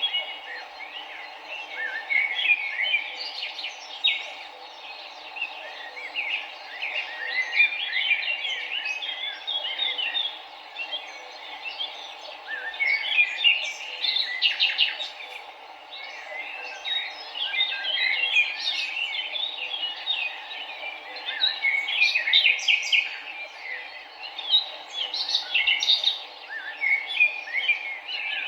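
Many songbirds chirping and trilling at once in quick, overlapping calls, over the steady rush of a river.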